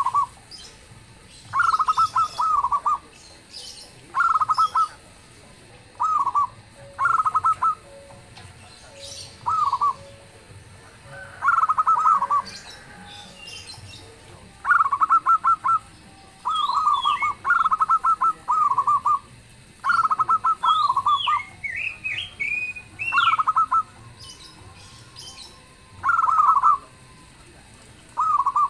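Zebra dove cooing in short, repeated phrases of rapid staccato notes, one phrase every second or two. Higher, sliding chirps from another small bird come in twice around the middle.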